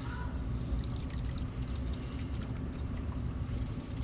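Hot engine oil draining in a steady stream from the oil pan into a drain pan.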